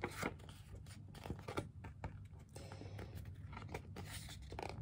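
Faint rustling and crinkling of a paperback picture book's pages as the book is handled and held up open, with a few soft taps and crackles.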